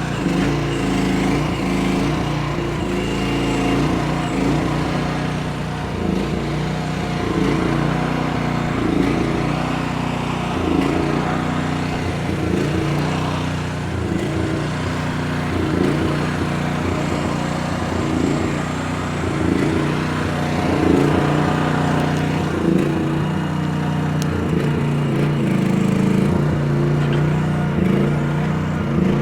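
Equipment engine running steadily under working load, its note wavering and surging about every second or two.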